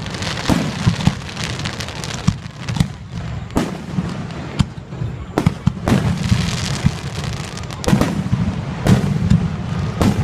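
Aerial firework shells bursting overhead in quick succession, a sharp bang about once a second, with crackle and hiss between the bangs.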